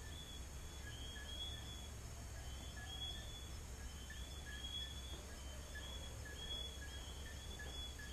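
Night chorus of small whistling frogs: many short, high, slightly rising whistled notes overlapping from several callers, about one or two a second, over a faint steady chirring of crickets.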